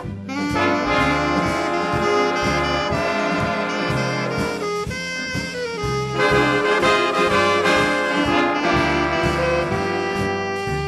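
Background jazz music: brass horns playing sustained melody lines over a steady bass beat.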